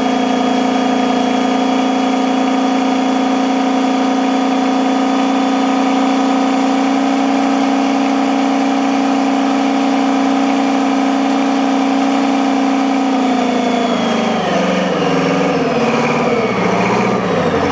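Turbocharged Detroit Diesel V8 engine running at a steady speed, then about fourteen seconds in its pitch drops and wavers up and down as the engine speed falls and hunts.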